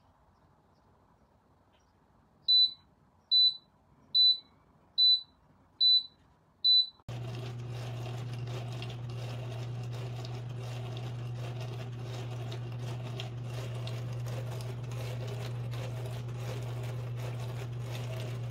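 Countertop dishwasher's electronic signal beeping six times, short high beeps evenly spaced a little under a second apart. About seven seconds in, a steady low hum with hiss starts suddenly and runs on.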